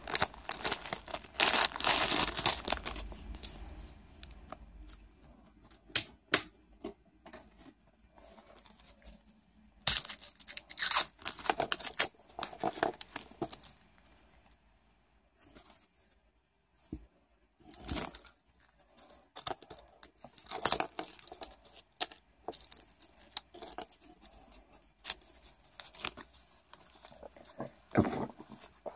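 Small plastic wrappers crinkling and tearing as they are peeled open by hand. The sound comes in irregular bursts of rustling and short snaps, with quiet gaps between them.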